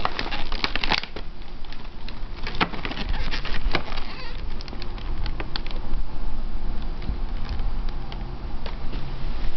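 Hard plastic blister packaging crackling and clicking as a hand presses and shifts it in a cardboard toy box. The clicks are densest in the first few seconds and sparse after. A steady low rumble runs underneath.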